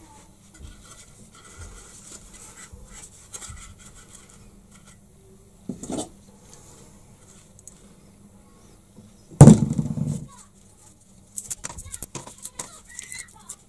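An old paper-cone loudspeaker being taken apart by hand: light scraping and handling noises, a knock about six seconds in, then a loud thump about nine and a half seconds in, the loudest sound, lasting about a second. Near the end comes a quick run of sharp clicks and scrapes as the metal frame and its ring are worked loose.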